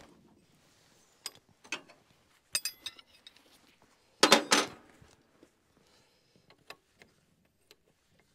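Metal clinks and clatter of a wrench on the fuel injector line fittings of a diesel injection pump as the lines are loosened: a few scattered clinks, a louder brief clatter about four seconds in, then a few faint ticks.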